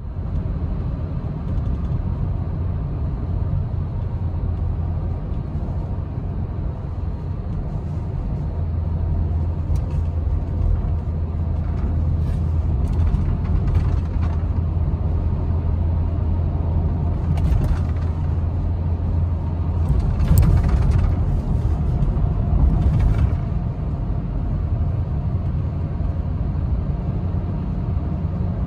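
In-cab drone of a 2012 Toyota Tundra with the 5.7-litre V8 cruising on a winter road: a steady low mix of engine and tyre noise on snow tyres. The drone swells a little through the middle, with a few brief rushes of noise.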